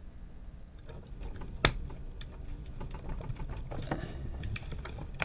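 Small hard plastic parts being handled: one sharp click about a second and a half in, then irregular light clicking and rattling.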